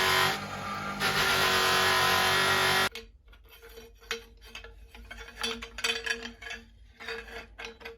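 Electric polishing machine running loud and steady while a part is buffed on it, dipping briefly under load about half a second in, then cutting off abruptly near three seconds. Faint rubbing and handling clicks follow.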